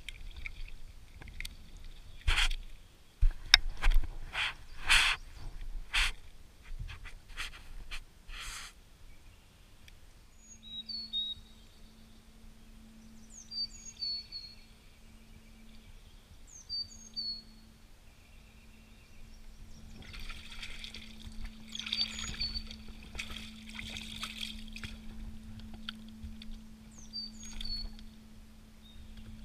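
Shallow lake water splashing and sloshing around a wader, loudest in a run of sharp splashes a few seconds in and again in a softer patch about two-thirds through. Small birds chirp now and then, and a steady low hum sets in about a third of the way through.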